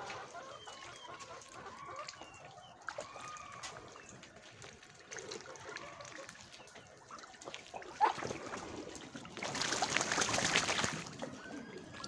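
Muscovy ducks bathing in a muddy puddle, dipping and splashing, with one loud spell of splashing and wing-beating in the water about nine and a half seconds in that lasts a second or so. Farmyard fowl give short clucking calls in the background.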